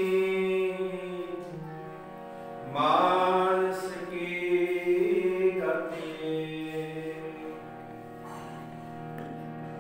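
Sikh kirtan: a shabad sung to harmonium, the harmonium holding long chords and notes while the singing comes in strongly about three seconds in and again near six seconds.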